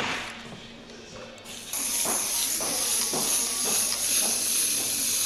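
A short click, then a loud steady hiss that starts about two seconds in, over faint music with a regular beat.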